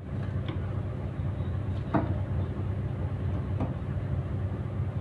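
Steady low hum of a ferry's machinery running at berth, with a few faint knocks about half a second, two seconds and three and a half seconds in.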